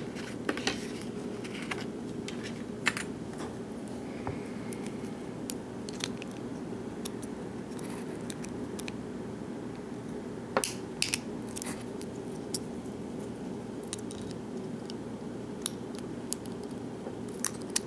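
Sparse small metallic clicks and taps from a lock and its pick tools being handled, over a steady low hum.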